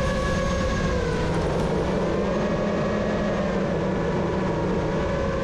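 The motors and propellers of a 7-inch FPV quadcopter, running as a steady whine over a low rumble of wind. The pitch dips slightly about a second in as the throttle eases, then holds.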